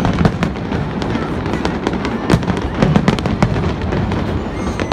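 Fireworks display going off: many sharp cracks and bangs in quick, irregular succession over a continuous low rumble.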